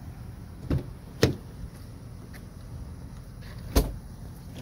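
Conversion van's rear door being unlatched and swung open: two short latch clicks about half a second apart, then a heavier clunk near the end.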